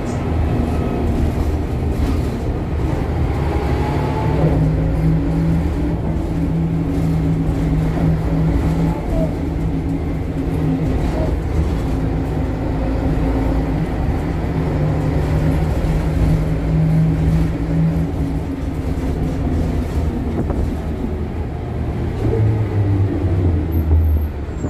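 Interior of an Ikarus 260 city bus with a ZF gearbox under way: the diesel engine runs with a steady drone while the body and fittings rattle. Near the end the engine note changes pitch.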